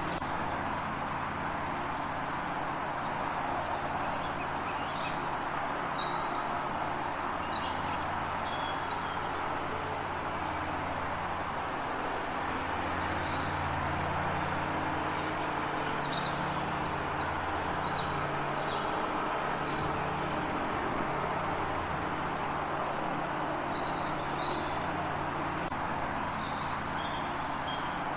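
Small birds chirping in short, scattered calls over a steady low rumble and hiss.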